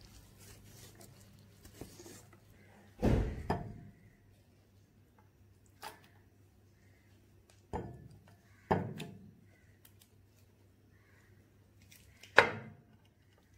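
Soft thuds and knocks as set jelly, then thick custard, are tipped from a container and a pan into a glass bowl: a pair of thuds a few seconds in, more around the middle, and a sharper, louder knock near the end.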